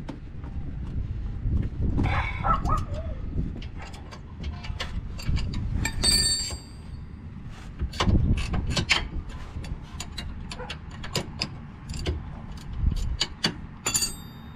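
Wrench and steel brake parts of a car's rear disc brake clinking and knocking irregularly during hand work on the caliper bracket and rotor, with two ringing metallic clinks, about 6 seconds in and near the end.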